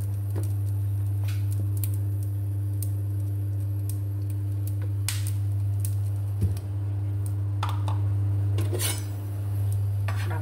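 Light clicks and taps of kitchenware as cooking oil is poured into an empty nonstick frying pan, over a steady low hum, with one dull knock about six and a half seconds in.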